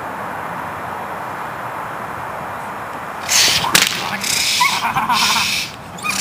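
Steady outdoor background noise, then about three seconds in a sudden loud stretch of protection-work agitation: a sharp whip crack or two amid hissing, swishing rushes.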